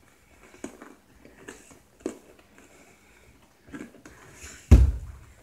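Faint chewing and small mouth clicks from eating frosted sugar cookies, with a single loud, deep thump near the end.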